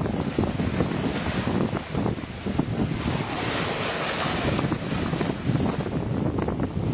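Wind buffeting the microphone over a steady wash of water, with a brighter rush about three seconds in that fades again a second and a half later.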